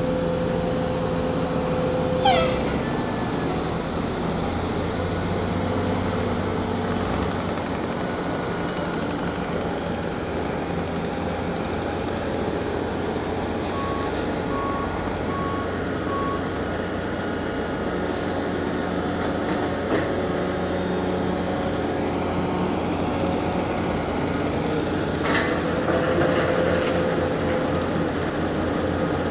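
Steady diesel drone of a tracked mobile crusher and a Cat hydraulic excavator working a rock quarry. About two seconds in, a brief high squeal sweeps down in pitch. Four short beeps sound around the middle, and rock clatters as the excavator dumps its bucket into the crusher's hopper near the end.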